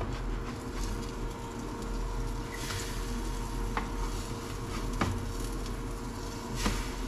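Scrambled eggs sizzling in a pan while a spatula stirs and scrapes them, with four sharp clicks of the utensil against the pan.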